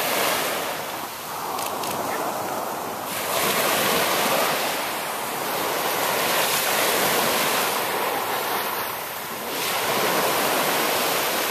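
Small waves breaking and washing up on a sandy beach, the surf swelling and easing about four times.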